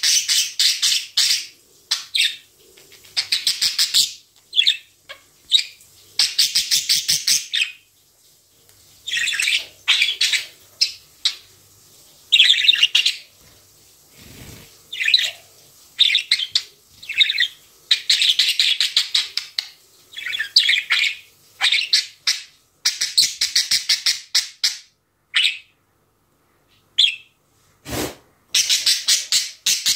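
Budgerigar chattering and warbling in repeated bursts of rapid, buzzy chirps with short pauses between them. Near the end there is a single thump.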